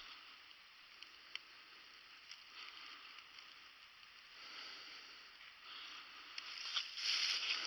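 Footsteps rustling through dry leaf litter and brush, faint and uneven, with a few light snaps, and louder near the end.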